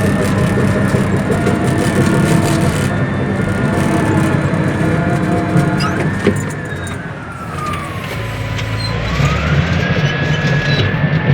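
Bulldozer's diesel engine running loudly. About six seconds in, its high whine drops in pitch and then climbs back to its earlier level near the end.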